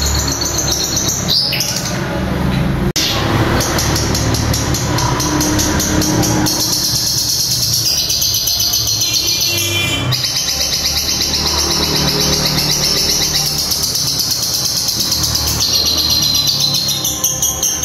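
A caged long-tailed shrike (cendet) singing a long, rapid, high chattering trill in imitation of a lovebird's 'ngekek' call, with a short break about three seconds in.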